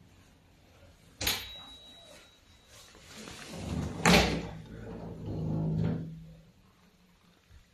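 Metal boat cabin door being unlatched and opened: a sharp latch click about a second in, then rustling and a louder clunk of the handle and latch about four seconds in.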